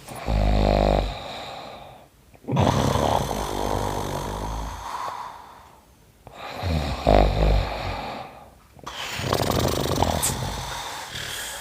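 A man's deliberately exaggerated fake snoring: a loud, rasping snore on the in-breath followed by a long breathy out-breath, twice over.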